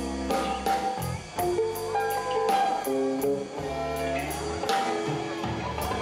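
Electric blues band playing live: a Stratocaster-style electric guitar plays a riff over low bass notes and a drum kit, with cymbals ticking at a steady beat.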